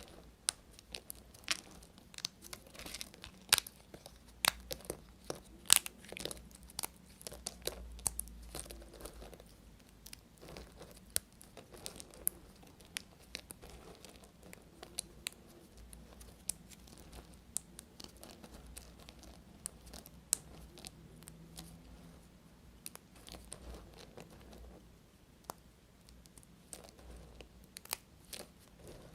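Knife cutting dry bar soap: a run of crisp crunches and snaps, dense in the first half and sparser later.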